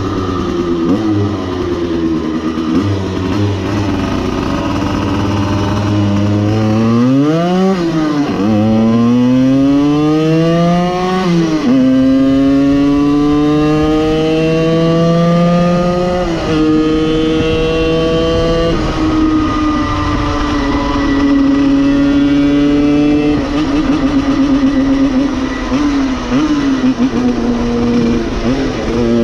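85 cc two-stroke single-cylinder engine of a street-converted Simson cross moped under way. It runs steadily at first, then about seven seconds in it revs up hard through the gears, the pitch climbing and dropping back at each shift, before settling to a steady cruise with the pitch drifting slowly.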